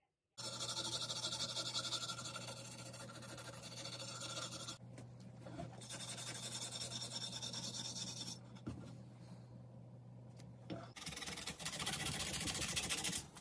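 A hand tool scraping old paint off a metal fan mounting bracket, a rasping scrape in three longer spells with lighter scraping between. A low steady hum sits under it and stops about eleven seconds in.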